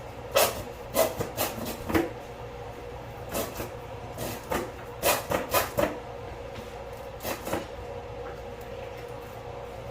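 A metal spoon knocking and scraping against a cooking pot while stirring the ground beef, sausage and barbecue sauce mixture: irregular clusters of sharp clanks over a faint steady hum.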